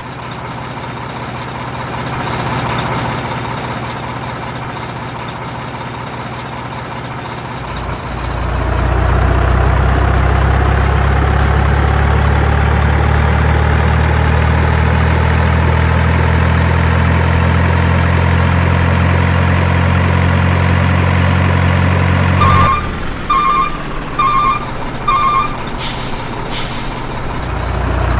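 Truck engine running, growing louder and rising in pitch about eight seconds in, then cutting off abruptly. Four short reversing beeps follow, then two short air-brake hisses near the end.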